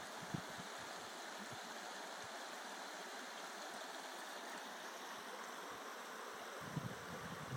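Steady, even rushing of a small forest stream, with a few low thumps about a second before the end.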